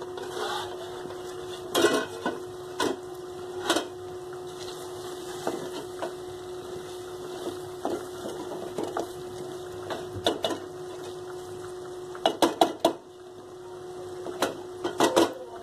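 Metal spoon clinking and scraping against a metal cooking pot and its lid as okra is stirred, in scattered knocks with a quick cluster of clinks about twelve seconds in, over a steady low hum.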